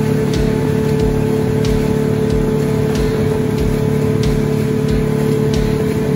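Outboard motor of a small boat running steadily at speed, a constant engine hum with faint knocks now and then.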